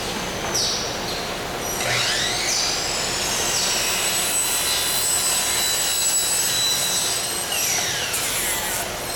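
A power tool on a workshop floor spins up with a rising whine about two seconds in, runs steadily, then winds down with falling whines near the end, over a steady machinery din.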